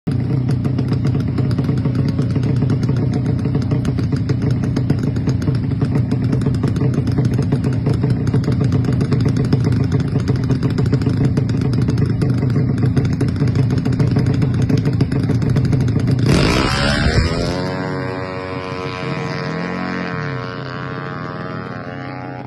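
Single-cylinder engine of a tuned 200cc Yamaha Mio drag scooter running loud at steady high revs. About three-quarters of the way through the sound changes abruptly, then goes on quieter with a wavering, gliding pitch as the revs fall.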